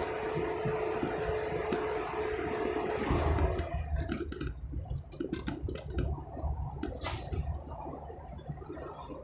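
Road and engine noise inside a moving vehicle: a steady whine for the first three seconds that dips and stops, then a low uneven rumble with scattered knocks.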